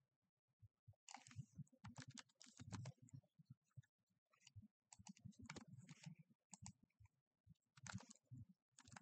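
Faint computer keyboard typing: short runs of quick keystrokes separated by pauses.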